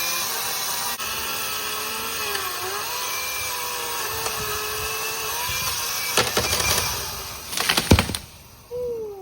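Chainsaw running and cutting into a tree branch, its pitch rising and dipping under load. Near the end comes a run of sharp cracks and one loud knock, then the motor winds down with a falling whine.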